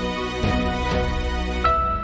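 Intro music: sustained pitched notes with a new note coming in about every half second, and a fresh held chord near the end.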